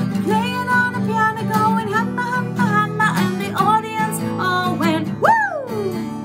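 Acoustic guitar strummed steadily while a woman sings a children's song, and about five seconds in her voice swoops high and slides down in pitch.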